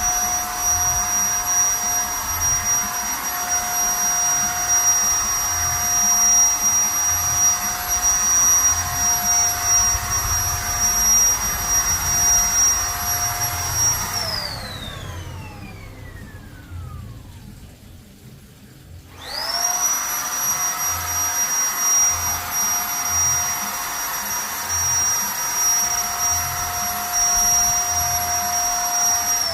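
Zipper electric paint spray gun's motor running with a steady high whine. It is switched off about 14 seconds in and winds down in a falling whine, then starts again about 19 seconds in, rises quickly back to speed, and begins winding down again at the end.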